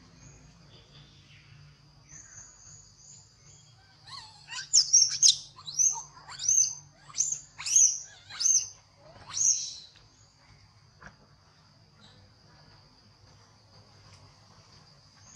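A run of about eight shrill animal calls, each sliding steeply down in pitch, starting about four seconds in and over within about six seconds. A steady, high insect drone runs underneath.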